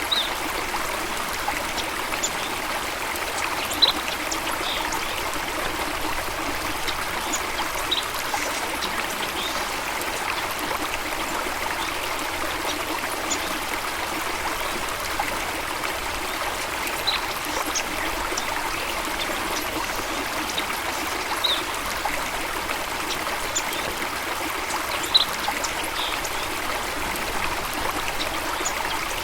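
Running water of a stream, a steady even rush and trickle. A handful of brief high-pitched blips stand out at scattered moments.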